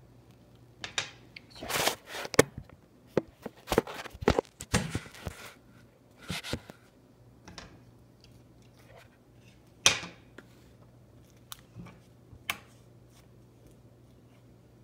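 Fresh slime squished and pulled in the hands, giving irregular sticky clicks and crackling pops. They come thickly for the first several seconds, with one louder pop about ten seconds in and a few more after it.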